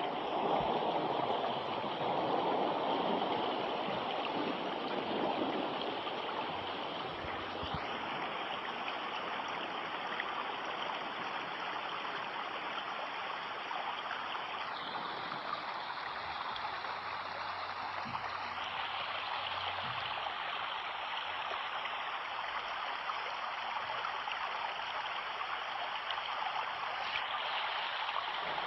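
Stream water running with a steady, even rush.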